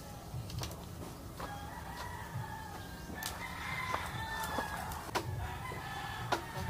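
A rooster crowing, with one long crow about halfway through. A few sharp clicks and taps are heard over it.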